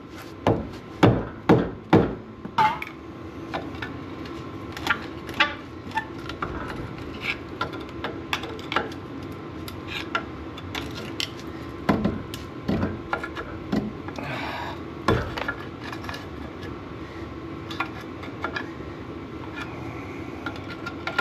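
Dead blow hammer striking a seized, corroded brake caliper, about half a dozen blows at roughly two a second in the first few seconds. Then scattered metal clinks, knocks and scraping as the frozen caliper is worked loose.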